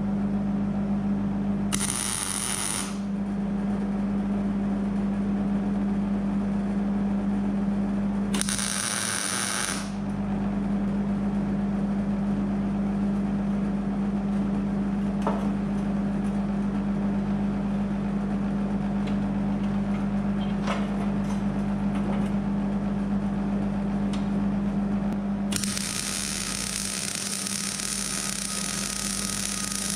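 MIG welder arcing on steel in three bursts: two short welds of about a second each, about two and nine seconds in, then a longer weld from about twenty-six seconds to near the end, each a steady crackle. A steady low hum runs underneath throughout.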